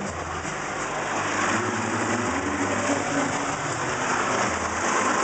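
Automatic car wash spraying water onto a car's windshield and body, heard from inside the car: a steady rushing, rain-like hiss that grows louder after about a second.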